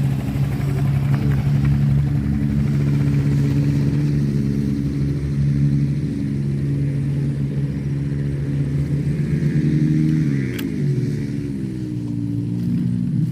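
An engine running steadily, its pitch sliding down after a sharp click about ten seconds in.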